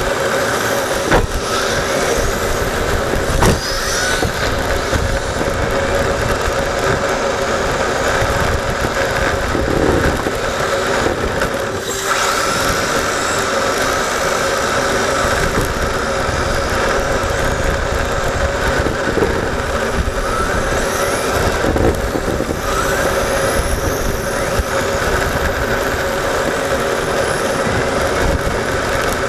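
Yokomo YD-2 electric RC drift car heard from a camera mounted on the car. Its motor and gears make a steady whine over a noisy rush, the pitch rising and falling as the throttle changes, with a couple of sharp knocks in the first few seconds.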